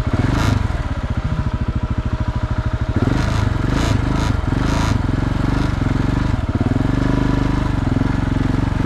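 KTM 690 Enduro's single-cylinder engine chugging at low revs, its firing pulses evenly spaced, with a few short noisy bursts between about three and five seconds in.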